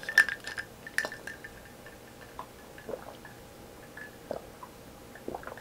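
Ice cubes clinking in a glass mug of water, two sharp clinks with a short ring near the start, then soft swallowing sounds as the ice water is drunk.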